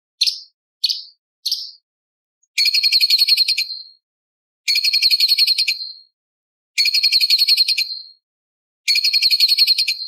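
Orange-bellied leafbird (cucak cungkok) singing: three short high chirps, then four fast chattering trills of just over a second each, about two seconds apart.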